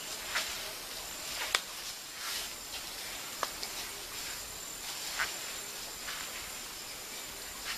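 Steady high-pitched drone of forest insects, with a few short, sharp clicks scattered through it.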